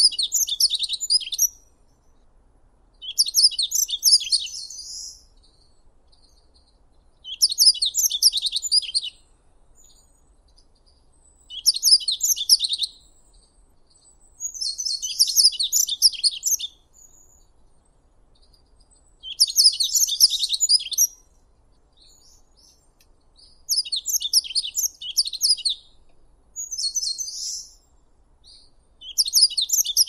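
Yellow-throated bunting (Emberiza elegans) singing: short, high song phrases of rapid notes, each lasting about two seconds, repeated every three to four seconds with pauses between.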